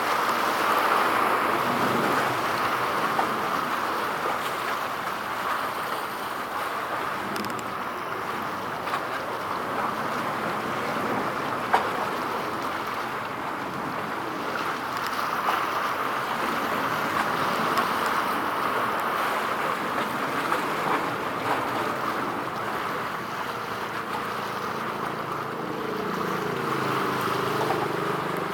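Steady outdoor rushing of wind and water, swelling and easing slowly, with a single sharp click about twelve seconds in.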